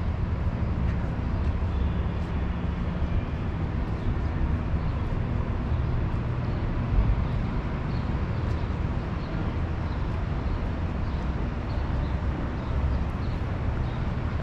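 Steady city street noise: a low traffic rumble of passing and idling vehicles, with a brief thump about seven seconds in.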